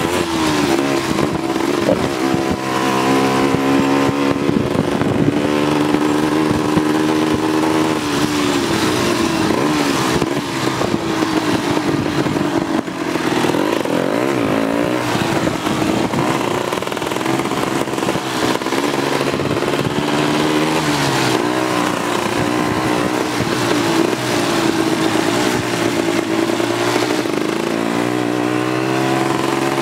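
Four-wheeler (ATV) engine running hard while being ridden off-road, its pitch rising and falling over and over as the throttle is opened and eased off.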